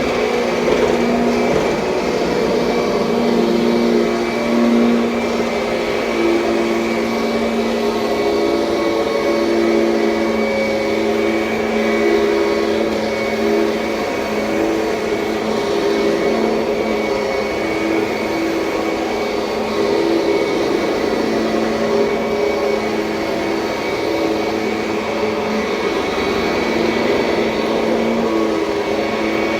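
2007 Kirby Sentria upright vacuum cleaner running steadily, its motor whine wavering a little in pitch.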